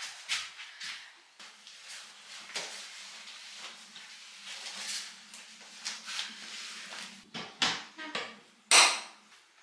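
Rustling and scattered knocks as a horse rug is pushed up into a horse lorry's overhead Luton storage, with a louder thump near the end. A faint steady low hum runs underneath.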